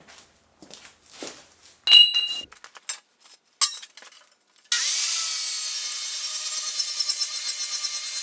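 A few light metal clinks and one ringing clang from steel being handled, then, a little past halfway, an angle grinder starts cutting into the steel forge shell with a loud, steady grinding whine.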